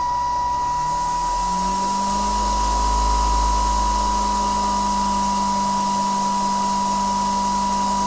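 Electric blade motor of a homemade mower unit spinning its cutting knife. Its hum rises in pitch over about a second as it speeds up from 2000 to 3000 rpm, then holds steady. A steady high whine runs throughout.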